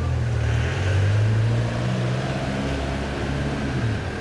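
A van's engine running as it drives past close by in street traffic, a steady low sound whose pitch shifts slightly and which is loudest about a second in.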